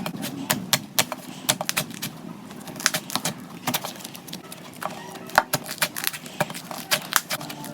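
Slime being squeezed and pressed, making irregular sharp clicks and pops, several a second.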